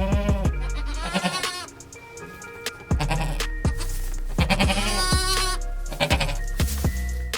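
Goat bleating three times, the third call longer than the others, over a music beat with steady bass and drum hits.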